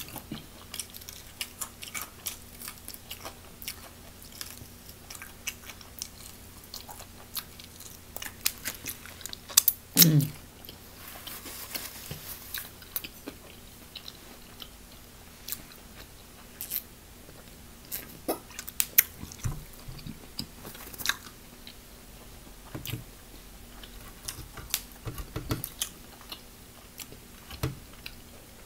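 Close-up chewing of crispy fried chicken, with sharp crunches and wet chewing sounds throughout. One louder short sound with a falling pitch comes about ten seconds in.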